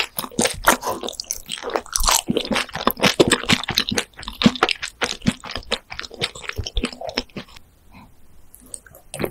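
Close-miked crunching and chewing of breaded fried fries coated in a thick creamy sauce: a rapid run of crisp crunches that thins out to a few faint ones near the end.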